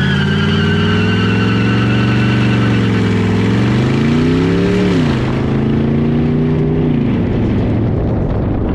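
Pontiac G8's engine and exhaust heard from beside the moving car, running steadily, its note climbing and then dropping sharply about five seconds in, and easing down again around seven seconds, with tyre noise underneath.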